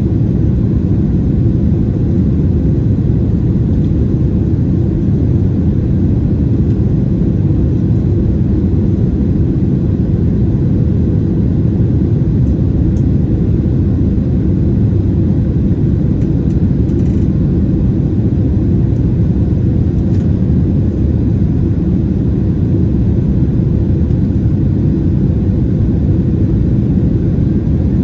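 Steady cabin noise of a Boeing 767-300ER climbing after takeoff, heard inside the cabin: a deep, even rumble from its General Electric CF6 turbofan engines and the airflow over the airframe.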